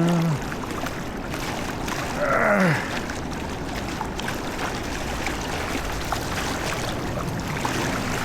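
Steady rush of river water running over the streambed, with small splashes and ticks through it. A man gives one short falling exclamation about two seconds in.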